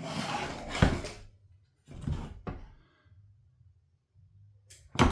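Hard parts and tools being handled on a workbench: a scraping slide ending in a sharp knock about a second in, two short clunks a little later, and a clatter near the end, over a faint steady hum.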